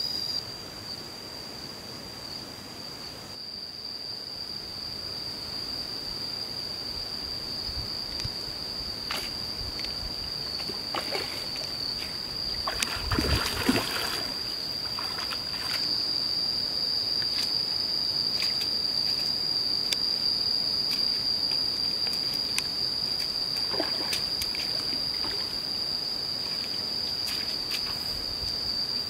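A hooked fish thrashing and splashing at the water surface, loudest in a burst about halfway through, with scattered splashes after it. A steady high-pitched insect drone runs underneath throughout.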